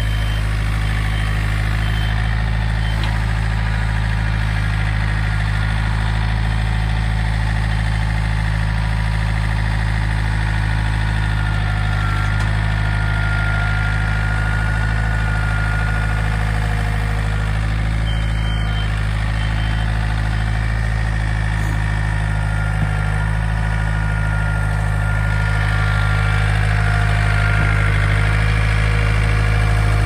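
Backhoe engine idling steadily, growing a little louder near the end.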